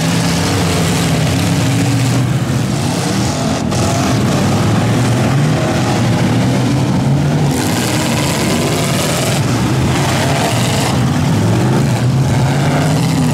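Several demolition-derby pickup trucks' engines running and revving together, loud, with their pitch rising and falling as they accelerate.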